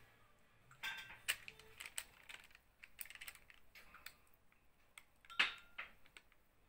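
Scattered light clicks and knocks as cake batter is poured from a bowl into a parchment-lined baking pan, with one louder knock about five and a half seconds in.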